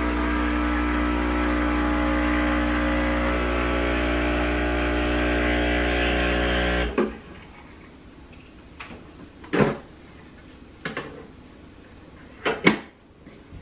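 Breville espresso machine's pump running with a steady buzzing hum as it pulls an espresso shot, cutting off suddenly about seven seconds in. A few sharp knocks follow in the second half.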